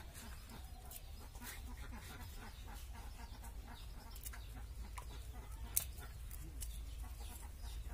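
Bottle gourd being cut on a boti, a fixed curved blade, in a run of short crisp cutting clicks with one sharper click late on. Chickens clucking faintly in the background.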